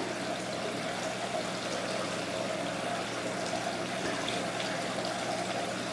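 Steady flowing and trickling water from an indoor exhibit's water feature, with a faint steady hum underneath.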